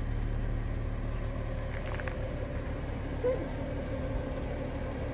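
Car engine running at low speed as the car rolls slowly, a steady low rumble.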